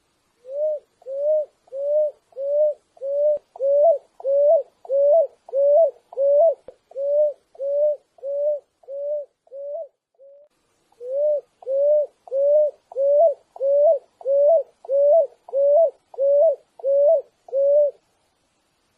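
Picui ground dove singing: a long series of short, low, rising cooing notes repeated at an even pace of about one and a half per second. The series breaks off briefly just past the middle, then resumes and stops about a second before the end.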